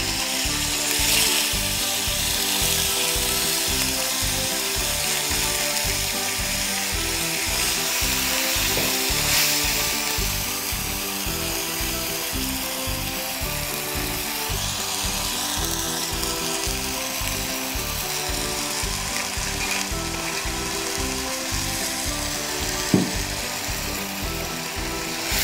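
Dried sprats sizzling as they fry in hot coconut oil with mustard seeds, under background music with a steady beat.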